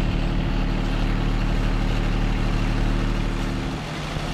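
John Deere 2320 compact tractor's three-cylinder diesel engine running steadily while pushing with its front plow, the engine note dipping briefly near the end.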